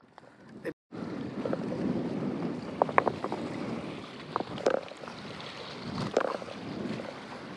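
Wind-driven waves lapping and splashing against a rocky lakeshore, with gusting wind on the microphone. After a short dropout about a second in, it is a steady wash broken by sharper splashes, the loudest about three, four and a half, and six seconds in.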